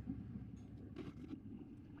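Faint, steady low rumble of street traffic.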